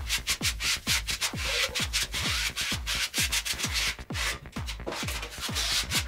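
A flat plastic spreader scraping back and forth over the paper backing of a large sanding disc, spreading glue in repeated short strokes. Electronic background music with a steady kick-drum beat, about two and a half beats a second, plays under it.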